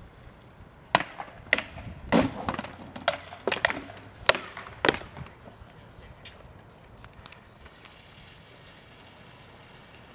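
Rattan swords striking shields and armour in sword-and-shield sparring: a quick flurry of about ten sharp cracks and knocks over some four seconds, the loudest near the middle, followed by only a few faint knocks.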